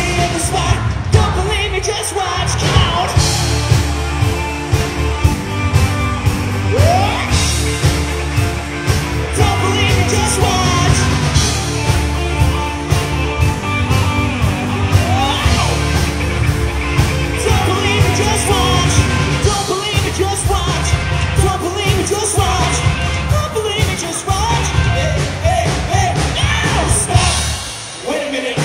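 Live rock band playing amplified: electric guitar, bass and a steady drum beat, with lead singing and shouted backing vocals. The bass and drums drop out briefly near the end.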